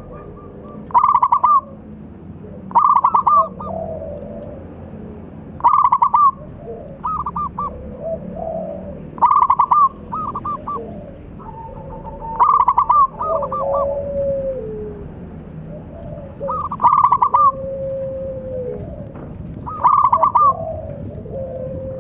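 Zebra doves cooing: loud phrases of rapid, stuttering coos repeat about every two to three seconds, with softer, lower, drawn-out coos in between.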